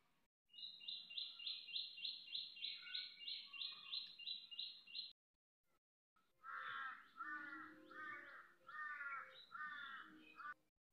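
Birds calling: a fast run of high repeated notes, about three a second, for four seconds or so, then after a second's break a row of about six lower calls, evenly spaced, that sound like a crow cawing.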